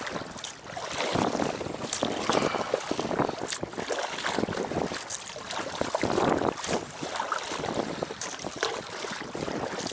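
Choppy lake water splashing and lapping against the hull of an inflatable packraft as it is paddled, with wind buffeting the microphone.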